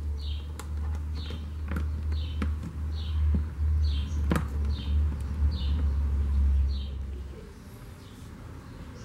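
A bird chirping over and over, a short high call about every two-thirds of a second, over a low rumble that stops about seven seconds in. A few sharp clicks come from a small metal C-clamp and wire being handled against a plastic tub rim.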